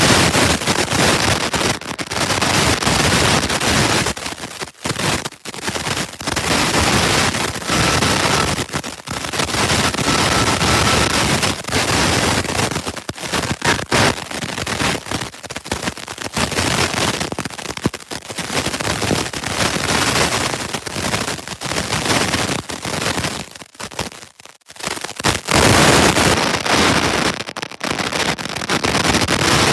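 Osaka Metro Tanimachi Line 22 series subway car 22618: a loud, crackly rush of noise with several brief dips, and a faint steady tone for about three seconds a third of the way through. This car's door chime is faulty and makes an abnormal sound.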